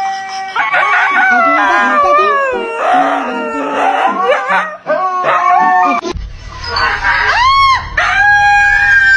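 Siberian huskies howling. The long drawn-out calls slide up and down in pitch. About six seconds in a different husky howls with a call that rises and then falls.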